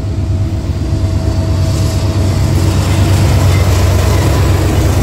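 CSX freight train's diesel locomotives passing close by: a steady low engine drone under a rumble of steel wheels on the rails, growing louder as the lead units go past.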